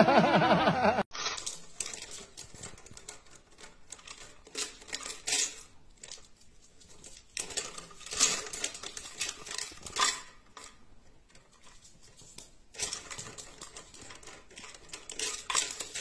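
Dry food or treats rattling and clattering inside a hanging plastic bottle feeder as a small dog knocks it about, in irregular bursts of clinks and taps.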